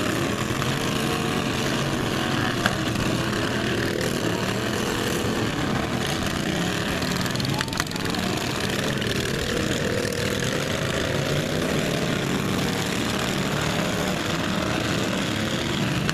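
Several small racing lawn mower engines running at once, their pitch rising and falling as they rev, with a sharp knock about halfway through.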